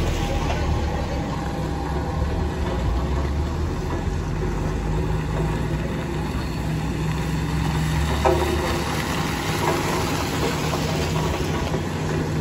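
Steady low drone of vehicle engines as a car and then motorcycles pass slowly on a muddy unpaved road.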